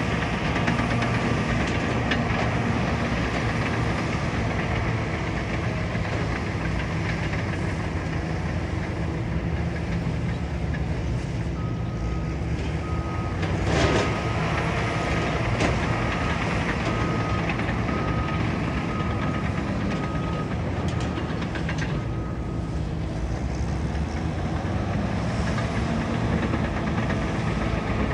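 Caterpillar bulldozer's diesel engine running steadily while it works, with its reversing alarm beeping about once a second for some ten seconds in the middle as the dozer backs up. A single sharp clank sounds partway through the beeping.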